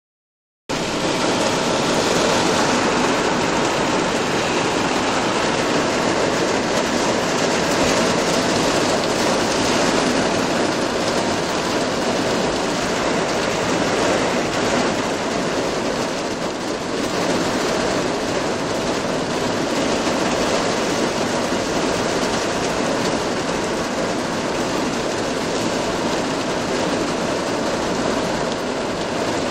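Heavy thunderstorm rain pouring down: a dense, steady hiss that starts abruptly a split second in and holds without letting up.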